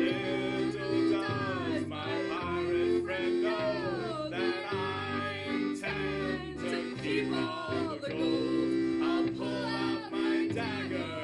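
Music: a voice singing, its pitch sliding up and down, over steady held chords.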